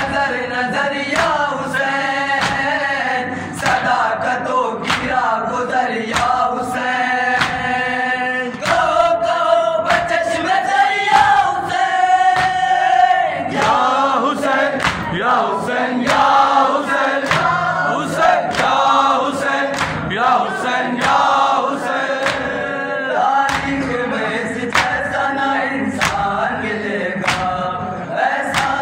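Group of young male voices chanting a noha (Shia lament) in unison through a microphone and PA, with sharp chest-beating (matam) slaps keeping a steady beat under the chant.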